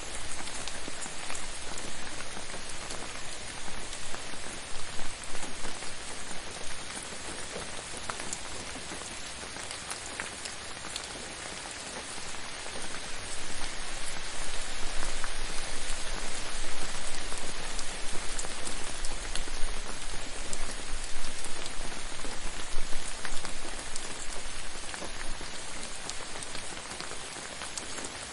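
Steady rain falling on a surface, with individual drops ticking through the patter; it swells louder in patches, notably from about halfway through.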